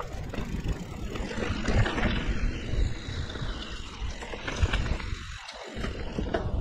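Mountain bike (Liv Pique 3) riding a dirt singletrack: a steady rolling rumble of tyres on the trail, with scattered clicks and knocks of the bike rattling over bumps.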